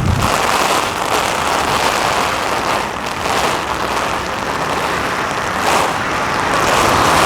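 Strong, gusting wind rushing and buffeting the microphone as a steady, loud noise that swells slightly now and then.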